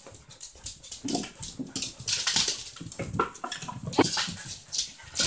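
Puppies and a dog play-fighting on a hardwood floor: quick scuffling and clicking of paws and claws, with a couple of short yips.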